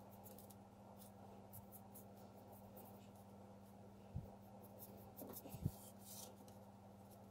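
Faint scratching of a small paintbrush dabbing and dusting chalk pigment onto an insulation-foam board, with two light knocks about four and five and a half seconds in, over a steady low hum.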